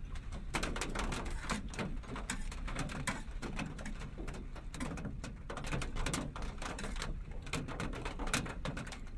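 Irregular light clicks and taps of a spoon against a pot and bowl as porridge is ladled out, over a steady low background hum.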